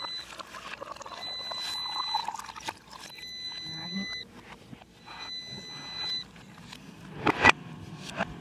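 Water poured from a plastic cup into a glass tumbler, splashing with a slowly rising pitch as the glass fills. An electronic beeping tone sounds in about one-second spells, four times, and two sharp knocks near the end come as the cup is set down on the counter.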